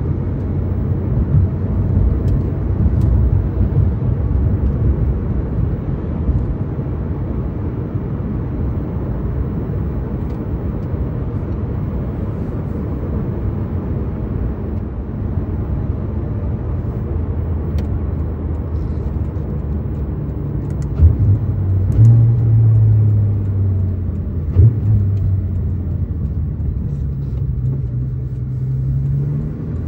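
Porsche 911 GT3 RS's 4.0-litre flat-six heard from inside the cabin, running at low revs at a steady cruise over tyre and road rumble. A few seconds past the middle the note steps up, with a couple of sharp thumps, and near the end the revs climb as the car accelerates.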